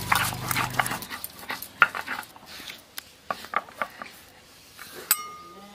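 Scattered sharp taps and knocks of a stone pestle and fingers working crushed spices on a wooden chopping board. A brief high-pitched whine comes near the end.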